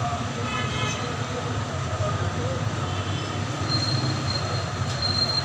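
Steady low rumbling background noise, with a thin high-pitched tone sounding twice near the end.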